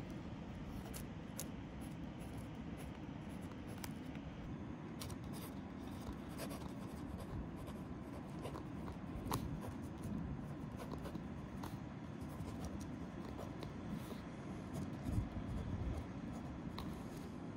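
Pen writing on a notebook page: faint scratches and ticks of the tip on paper, over a steady low background rumble. There are two slightly louder strokes, about 9 and 15 seconds in.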